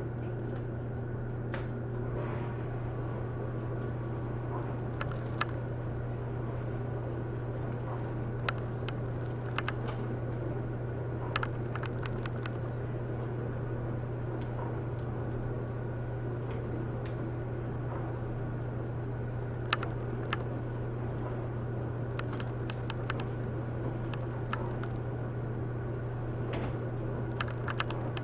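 Light, scattered clicks and taps of small laptop parts being handled as a replacement LCD screen is fitted and its connector plugged in, over a steady low hum.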